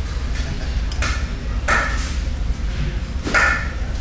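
Plates and utensils clinking against each other and the stainless-steel counter a few times, short ringing knocks, over a steady low hum.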